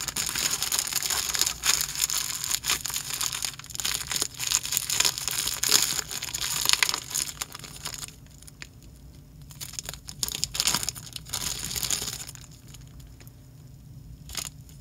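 Plastic zip-lock bag crinkling as it is squeezed and worked by hand to push shaving foam out. The crinkling runs densely for about eight seconds, eases off, comes back briefly, then goes quieter near the end.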